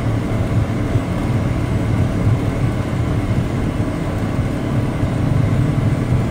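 Steady rumble of engine and road noise inside the cabin of a car driving along a street.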